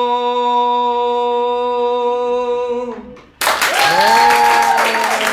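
A man's unaccompanied voice holds one long, steady sung note that fades out about three seconds in. After a brief hush, applause and cheering break out.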